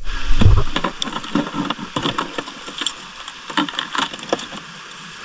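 Irregular sharp clicks and crackles over a faint hiss, with a low thump about half a second in, as picked up by a camera underwater on a night dive.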